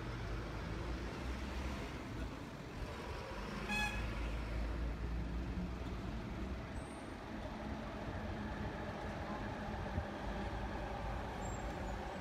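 Steady city traffic rumble, with a short high-pitched tone about four seconds in.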